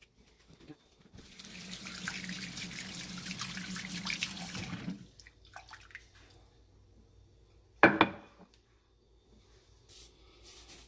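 Kitchen faucet running into a dish of cut fish pieces for about four seconds, then shut off, followed by faint sloshing as the pieces are rubbed clean by hand. One sharp knock or splash, the loudest sound, comes later.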